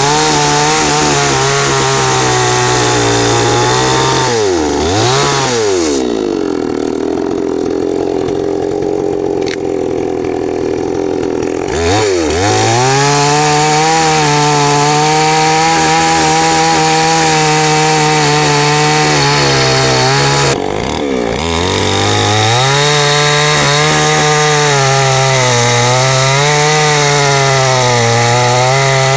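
Chainsaw engine running at high revs while cutting wood, its pitch wavering under load. It drops back to a lower idle for several seconds about a quarter of the way in, and dips briefly twice more before revving up again.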